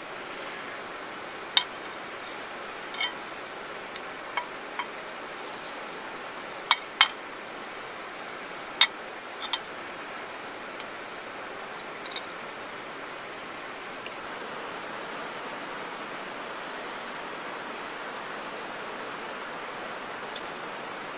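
A kitchen knife clinking sharply against a ceramic plate about ten times while grilled meat is cut, most of the clinks in the first half, over the steady rush of a river.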